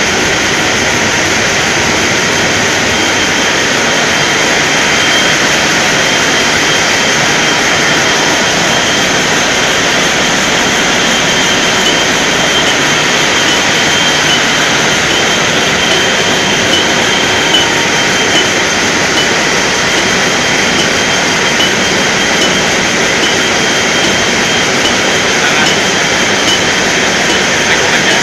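Motor-driven valve-lapping machine running steadily, spinning the valves against their seats in an engine cylinder head to lap them in. It makes a loud, even whirring noise, with light irregular ticks starting about halfway through.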